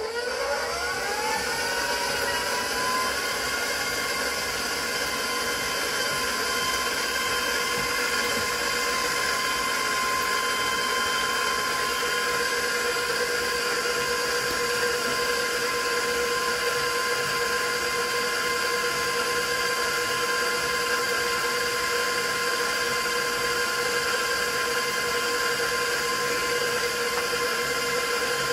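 Electric stand mixer starting up, its motor whine rising in pitch over the first two or three seconds. It then runs at a steady speed, beating eggs with sour cream in a stainless steel bowl.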